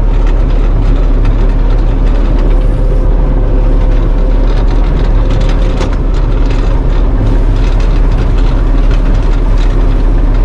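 Combine harvester's diesel engine running steadily, a loud low rumble with a constant tone over it.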